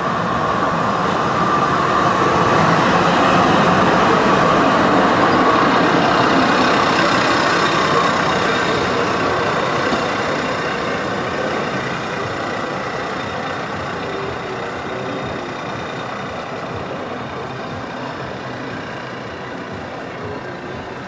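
Articulated tram passing on street track, its running noise with a steady whine swelling to a peak a few seconds in, then slowly fading as it moves away.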